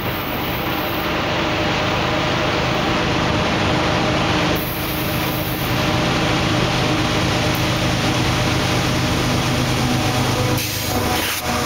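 Two GE diesel-electric freight locomotives, an ES44AC-H and an AC44CW, running at full power as they haul a heavy loaded train, nearing and passing close by near the end. It is a steady, loud engine drone with a constant low hum under a dense rush of noise.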